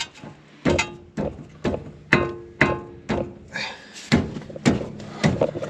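Metal-on-metal knocks at the steering knuckle of a Toyota solid front axle, about two a second, some leaving a short ringing.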